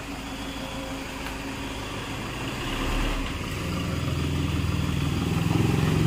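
Car engine and road noise while driving, a steady rumble that grows louder about halfway through.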